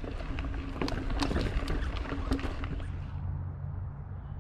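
Mountain bike ridden over a dirt single-track trail: a low rumble with a run of sharp clicks and rattles from the bike jolting over the ground. About three seconds in, the clatter stops and a duller, steady low rumble remains.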